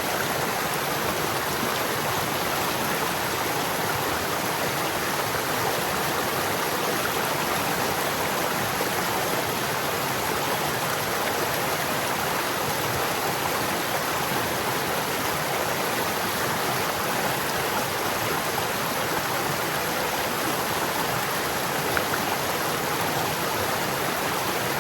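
Stream water running steadily over rocks: a constant, even rush of burbling water.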